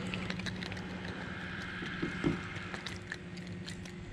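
Boat motor running at idle: a steady low hum, with small clicks and a soft knock about two seconds in.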